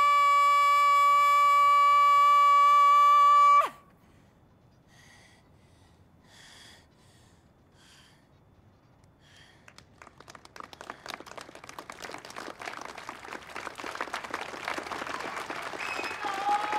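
A young woman's voice belting one long, steady high note, cut off sharply about three and a half seconds in. After a few seconds of near quiet, a crowd's applause and cheering starts at about ten seconds and swells, with a few shouts near the end.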